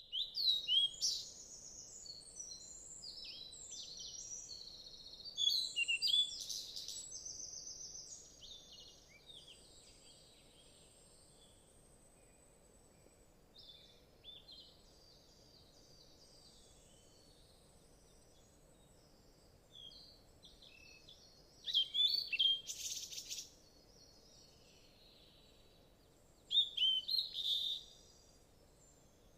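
Birds singing and calling in several loud bursts of quick, high, warbling chirps, with fainter chirps between them and a faint steady hum underneath.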